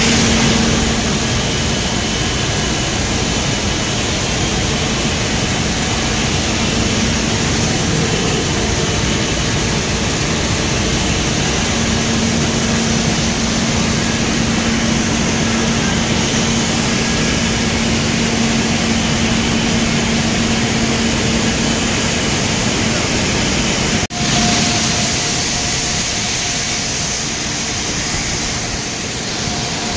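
Coffee bean processing machinery running: a loud, steady mechanical drone with a constant hum. It drops out for an instant about 24 seconds in and comes back with a second, higher hum added.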